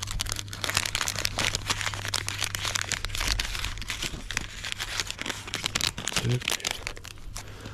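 Plastic packaging crinkling as it is handled: a dense, continuous run of small crackles and clicks over a steady low hum.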